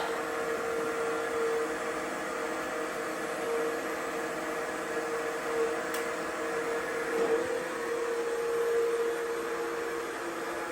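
Cheap battery robot vacuums running, a steady motor hum with a held tone. The higher tone drops out near the end, and there is a faint click about six seconds in.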